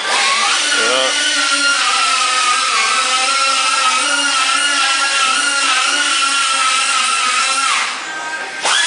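A power tool whining steadily at a high pitch. Near the end it slows and drops away for under a second, then comes back up to full speed.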